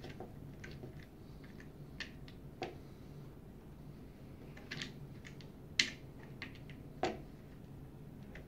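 Small screws being set by hand into the holes of an encoder wheel and soft plastic drive gear: scattered light clicks and taps, the loudest about six seconds in.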